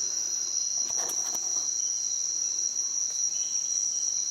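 Steady chorus of night insects in tropical rainforest, crickets or katydids making a continuous high-pitched trill. A few faint clicks come about a second in.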